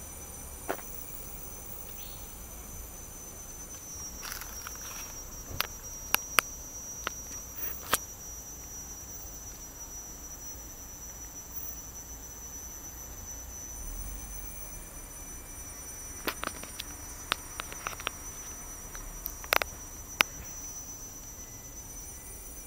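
Insects singing as a steady, high-pitched drone. Scattered sharp clicks come in two clusters, about five to eight seconds in and again about sixteen to twenty seconds in.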